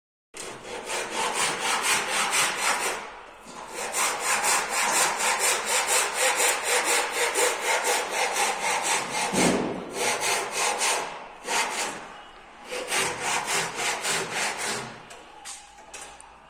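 Hand saw cutting wood in quick, even strokes, in runs broken by short pauses, with one dull knock about halfway through.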